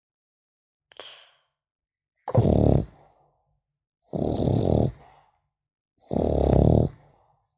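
French bulldog puppy snoring: three snores about two seconds apart, each under a second long, after a faint short breath sound about a second in.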